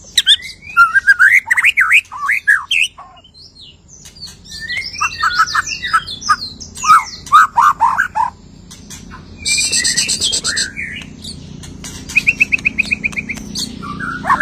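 White-rumped shama singing a loud, varied song after its moult, packed with mimicked phrases: quick sweeping whistles with a short pause, a harsh buzzy rattle about two-thirds through, then a fast run of repeated notes near the end.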